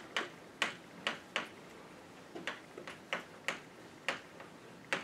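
Chalk writing on a blackboard: a quick, irregular series of sharp taps and short scrapes as each letter is struck onto the board, roughly two to three a second.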